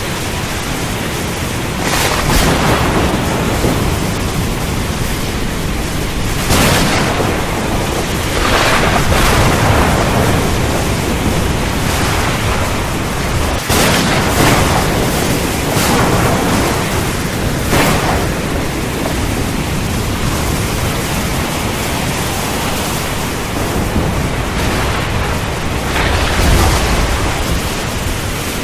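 Thunderstorm: a steady rush of rain and wind, with several thunder claps and rumbles breaking in every few seconds, each swelling and fading.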